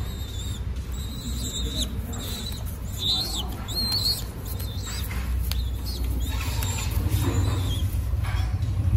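Young Mondain pigeon squab giving thin, high-pitched squeaks several times, a few of them wavering in pitch, the begging squeaks typical of a squab. A steady low hum runs underneath.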